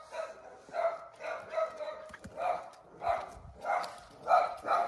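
Jack Russell terrier barking over and over at a cat perched out of its reach, a quick run of barks about two a second.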